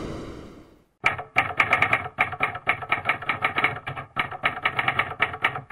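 The tail of a whoosh fades out. After a short gap come rapid typewriter keystrokes clattering at about seven a second, with a brief break about four seconds in.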